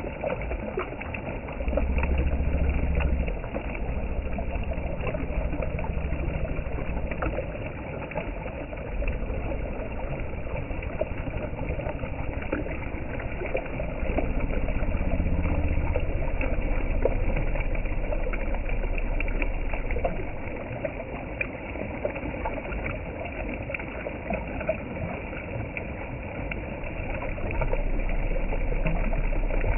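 Shallow river rushing over stones, a steady rushing noise, with a low rumble that swells about 2 s in, through the middle, and again near the end.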